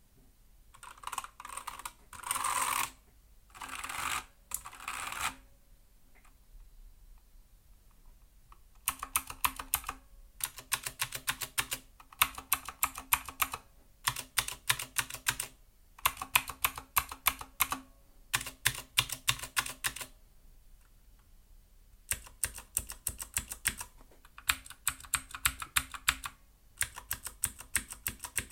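Mechanical keyboard being typed on in fast runs of clattering keystrokes, a few seconds at a time with short pauses between. Before the typing starts, in the first five seconds, there are three short smeared bursts of noise.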